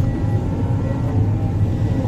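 Heavy diesel earthmoving machinery running steadily with a deep, even rumble. Faint, evenly spaced high beeps sound over it.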